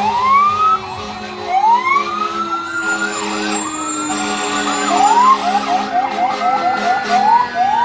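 Emergency vehicle sirens sounding together: several overlapping wails, each rising then dropping away. About five seconds in, one switches to a fast yelp, several chirps a second, over a steady low drone.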